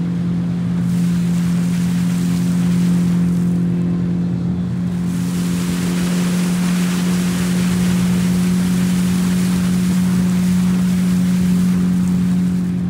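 A Zodiac's outboard motor runs at a steady speed, with a rush of water and wind over it that grows fuller about a third of the way in.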